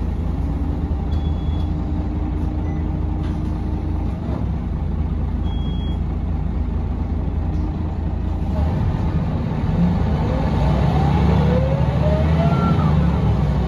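Mercedes-Benz O405NH bus heard from inside the cabin: the engine runs steadily at first, then from about nine seconds in it gets louder as the bus picks up speed, with whines rising in pitch from the ZF automatic gearbox and hub-reduction axles.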